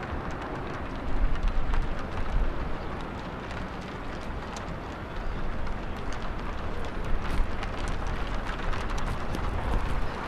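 Wind buffeting the microphone in gusts, strongest about a second in and again over the last few seconds, with light footsteps on the submarine's deck.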